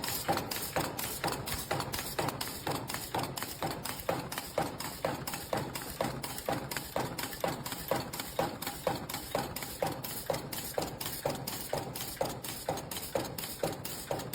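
Vertical form-fill-seal packaging machine cycling, a steady rhythmic clacking of about four knocks a second, each with a short ringing tail.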